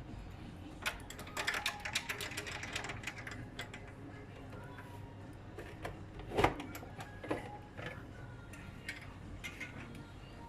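Hard objects being handled: a run of clicks and rattles, with one louder knock about six seconds in.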